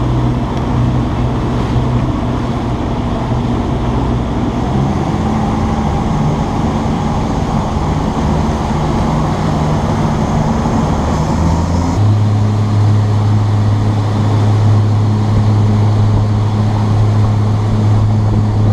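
A fishing boat's motor running steadily under way, with water rushing along the hull and wake. About twelve seconds in, the engine's tone shifts abruptly to a deeper, steadier hum.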